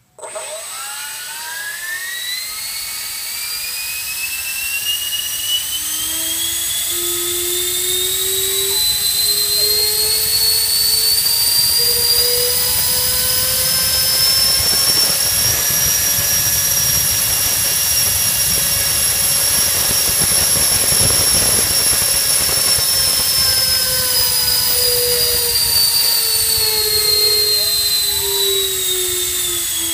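Changesun CS10 70 mm electric ducted fan driven by a Cyclone Power 480 2500 kV brushless motor on a 5S battery, starting abruptly and spooling up slowly to a high whine over about fifteen seconds, then throttling slowly back down through the second half. It is a static thrust run on a test stand.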